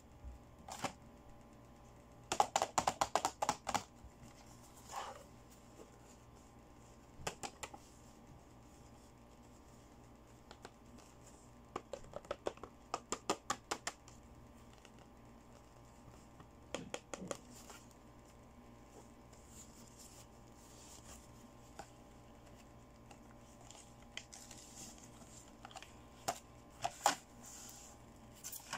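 Fingernails tapping and clicking on the hard plastic blister pack of a toy cupcake makeup palette, in several short bursts of quick clicks with pauses between.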